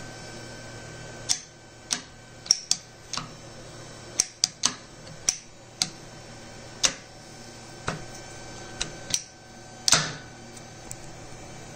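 Irregular sharp metallic clicks and taps from a homemade automatic lathe chuck being handled, its metal parts knocking together, the loudest near the end. A steady hum runs underneath.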